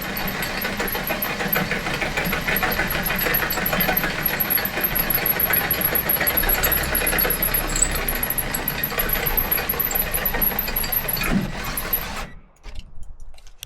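Power drill running under load with a 1/2-inch bit, a loud rattly grinding with a thin high whine, stopping suddenly about twelve seconds in.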